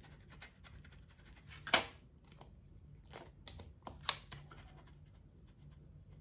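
Handling sounds of a vinyl decal being applied with a masking-tape transfer carrier: a few short, sharp scratches, the loudest nearly two seconds in and another about four seconds in, with quiet between.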